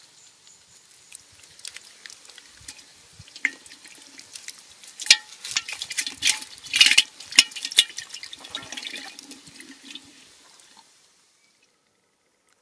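Muddy water splashing and slopping in a flooded hole as an eel thrashes and wriggles out of it, with several sharp wet slaps. The sound stops abruptly near the end.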